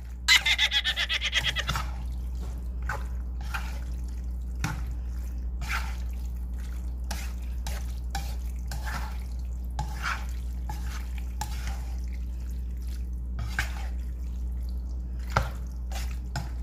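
A spatula stirring and tossing sauced penne in a nonstick frying pan: wet squelching with irregular scrapes and taps against the pan, and a quick run of rapid scraping in the first two seconds. A low steady hum runs underneath.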